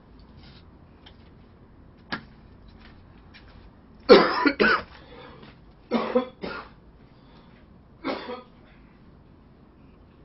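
A person coughing off and on: a pair of coughs about four seconds in, another short run around six seconds, and one more near eight seconds.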